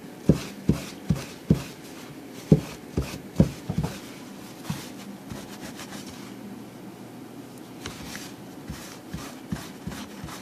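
A cloth rag scrubbing back and forth over a nylon rain jacket sleeve, wiping solvent over old tape adhesive residue. Quick strokes come about two a second, then grow quieter and sparser about halfway through.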